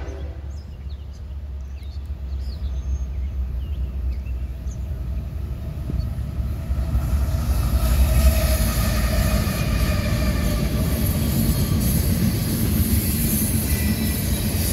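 CSX freight train passing: the diesel locomotive's low engine rumble grows as it approaches, getting louder about seven seconds in as the locomotive goes by, then the steady rolling noise of the boxcars and tank cars on the rails.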